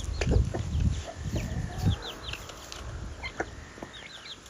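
Chickens peeping and clucking, with many short, high chirps repeating through the flock. A low rumbling noise lies under the first two seconds.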